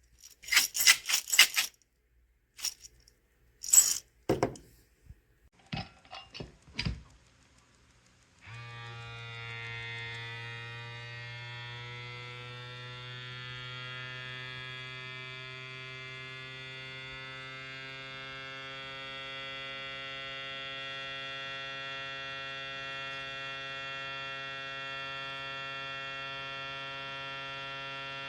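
Scattered light clicks and knocks of handling for several seconds, then the ikiu electric vacuum sealer's pump motor switches on suddenly about eight seconds in and runs with a steady hum.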